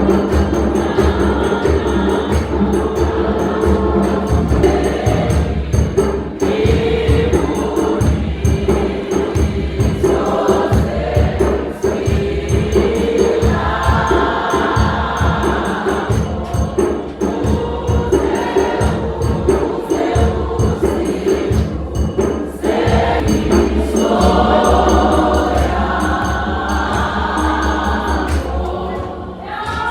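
Choir singing gospel music over a steady beat.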